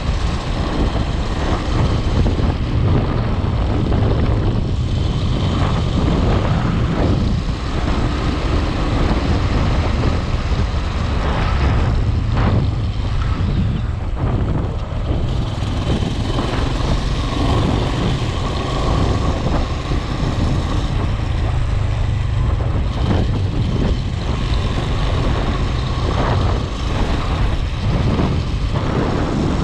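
A vehicle on the move: a steady, loud low rumble of engine and road noise.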